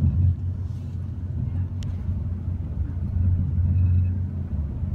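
Steady low rumble of an ICE high-speed train running, heard inside the passenger cabin, with a single sharp tick about two seconds in.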